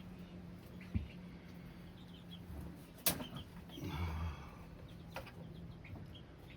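Faint clucking of chickens over a low steady hum, with two sharp clicks about one and three seconds in.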